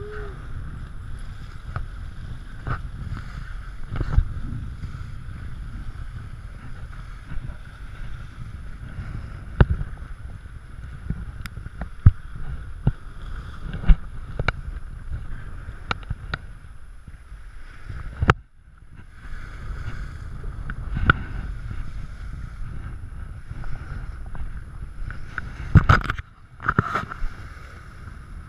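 Wind buffeting the camera microphone, with small lake waves washing against a rock shore. Scattered sharp knocks and taps sound throughout.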